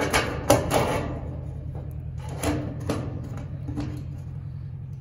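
Red-handled tin snips cutting through a steel roofing panel: a run of short, sharp metal cuts, three in quick succession, then after a pause of about a second a few more.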